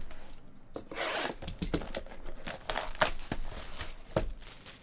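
Cardboard trading-card hobby box being slid across a textured mat and picked up: rubbing and scraping with scattered light knocks, the scraping strongest about a second in.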